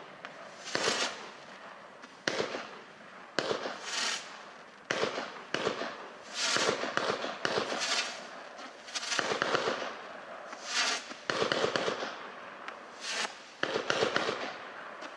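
A 36-shot consumer firework cake with 20 mm tubes (Evolution Fireworks Starlight) firing shot after shot, roughly one a second: each a sharp launch bang followed by a short hiss as the white spiralling stars burst.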